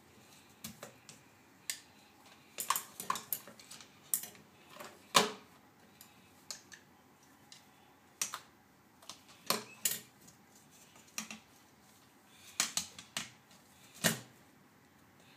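Irregular clicks and knocks of a plastic makeup compact and brush being handled on a countertop by small hands: the brush tapping in the compact and the case clacking on the counter. They come in small clusters, the loudest about five seconds in and near the end.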